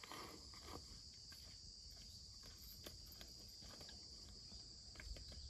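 Faint, steady, high-pitched drone of insects, with scattered light clicks.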